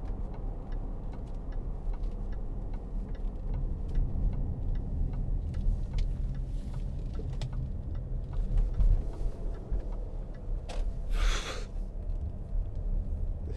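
In-cabin drive noise of a 2009 Range Rover with its 3.6-litre TDV8 diesel: a steady low engine and road rumble with a faint, regular ticking over it. A brief rush of noise comes about eleven seconds in.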